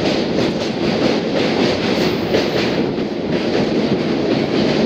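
Train rolling across a steel truss rail bridge: a loud, steady rumble of wheels on the bridge with a fast, even clatter of wheel beats.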